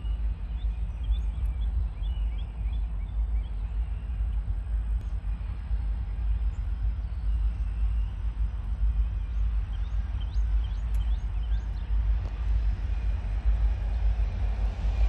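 Distant EMD SD60-series diesel locomotives approaching: a steady low rumble that grows slightly louder near the end. Small birds chirp over it in the first few seconds and again around ten seconds in.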